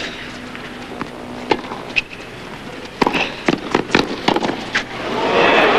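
Tennis rally: a series of sharp racket strikes and ball bounces, coming faster in quick exchanges about three to five seconds in. Crowd applause and cheering then swell up near the end as the point is won.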